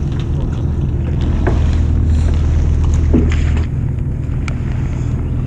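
Fishing boat's engine running with a steady low hum that swells for a couple of seconds in the middle, wind on the microphone, and a few light clicks.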